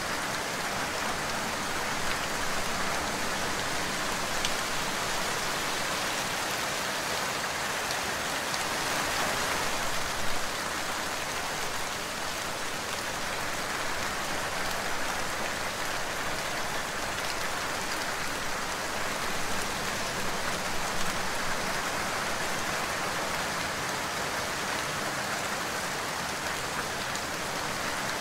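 Steady rain falling, an even hiss of many drops with a few slightly louder patters.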